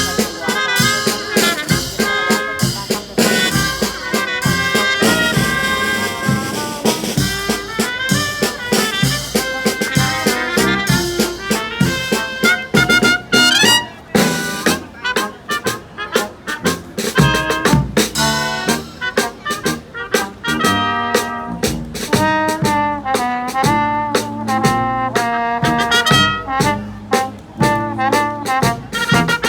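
Live brass band playing an upbeat instrumental tune, with trumpets and trombones carrying the melody over a beat.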